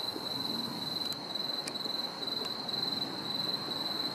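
Crickets trilling steadily in a high, even tone over faint background noise, with a few soft clicks.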